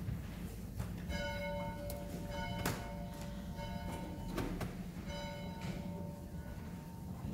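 A bell is struck slowly, about three times, and each stroke rings and fades, calling the room to worship. A couple of soft knocks fall between the strokes.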